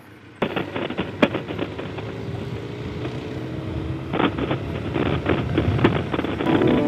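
Benelli TRK 502X motorcycle riding over a rough track: the engine running under a clatter of irregular knocks and rattles that starts suddenly about half a second in. Background music fades in near the end.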